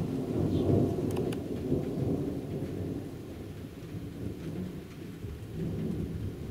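Rolling thunder rumbling low, loudest in the first two seconds, dying away, then swelling again briefly near the end. A few faint sharp ticks sound about a second in.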